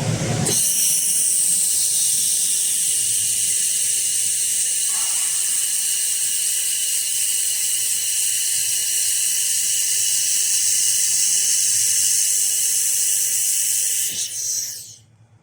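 Fiber laser welder running a weld pass on 5 mm aluminum: a steady, loud high hiss from the welding head and its gas flow that starts about half a second in and cuts off suddenly near the end.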